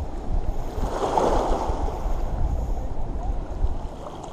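Wind buffeting the microphone over moving water, with a brief louder splash of water about a second in.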